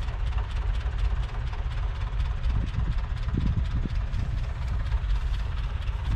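Case Maxxum 150's 6.7-litre six-cylinder diesel engine idling with a steady low rumble.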